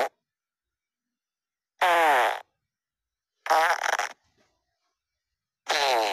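A series of fart sounds, played one after another with dead silence between them. The tail of one comes right at the start, then three more follow about two seconds apart, each about half a second long with a pitch that slides down.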